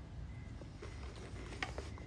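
Faint handling sounds, with a few light clicks near the end, as small drone accessories are packed into a carrying case.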